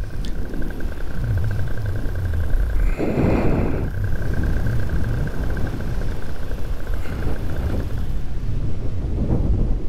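Wind rushing over the microphone with a paramotor's engine and propeller running steadily in flight; the engine tone stops about eight seconds in, as when the pilot cuts power to land. A brief louder sound cuts in about three seconds in.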